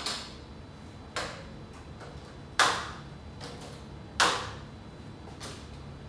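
Plastic clips on an LED grow light snapping onto a PVC pipe frame: four sharp clicks, each with a short ring, the second and third the loudest.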